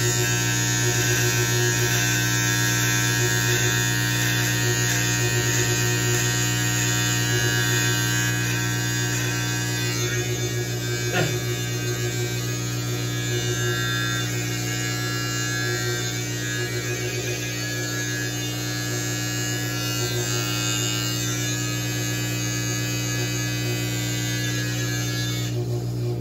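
Electric beard trimmer running with a steady buzz, switched off about half a second before the end.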